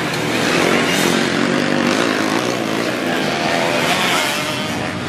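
Kawasaki Ninja motorcycle engine running as the bike is ridden, its pitch rising and falling with the throttle.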